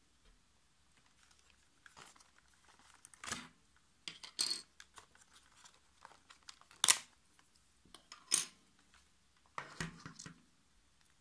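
Handling of hair clipper packaging: a plastic tray and plastic comb guards knocking and clicking against a table, with some rustling, in scattered short bursts. The sharpest click comes about seven seconds in.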